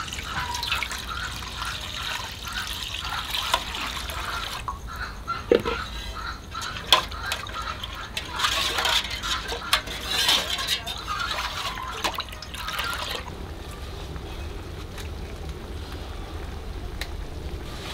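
Water pouring from a plastic jug into an aluminium pot, gurgling steadily for about four seconds. A metal ladle then stirs the water and agar powder, with splashing and a few sharp clinks against the pot. About thirteen seconds in, this gives way to a quieter, even outdoor background.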